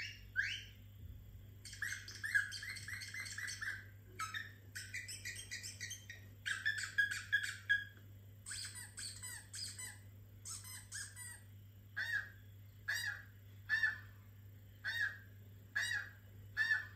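Recorded bird calls played through a laptop speaker. The first half has quick runs of chirps, then single squawking calls come about once a second.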